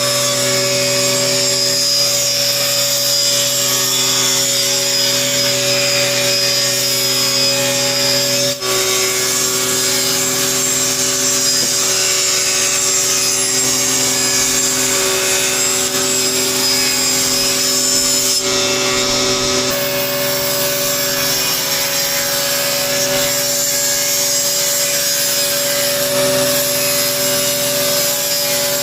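Table saw running with a steady motor whine while its blade cuts wooden pieces at a 45-degree angle, with a steady hiss over the top.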